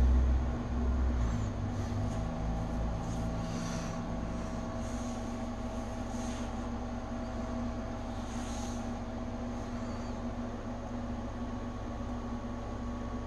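Steady mechanical room hum with a few held tones, like an air conditioner or fan running; a deeper rumble under it fades away in the first second or so. A few faint soft rustles sit on top.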